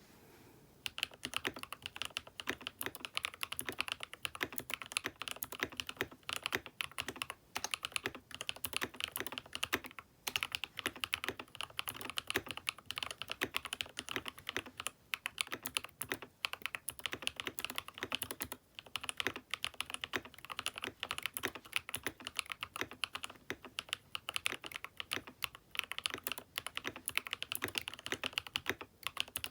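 Fast, continuous typing on a Keychron K6 Pro mechanical keyboard fitted with aftermarket switches. The typing starts about a second in and goes on with a couple of brief pauses.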